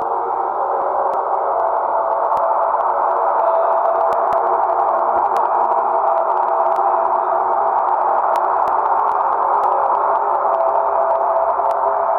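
Jupiter's "sound": spacecraft-recorded electromagnetic emissions from the planet turned into audio. It is a steady, droning space hiss with a few held tones inside it and faint scattered clicks.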